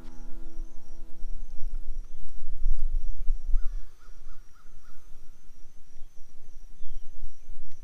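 Outdoor morning ambience: a bird gives four short calls in quick succession about three and a half seconds in, over a faint, evenly pulsing high chirp and a low rumble on the microphone.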